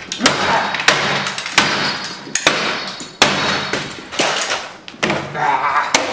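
A computer being smashed: a run of hard blows about once a second, each followed by a noisy clatter.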